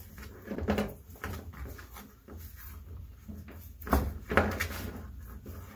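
Hand-handling noise from tucking a strand of three-strand nylon line into a rope-to-chain splice: rope rustling and scattered knocks, with the loudest pair of knocks about four seconds in.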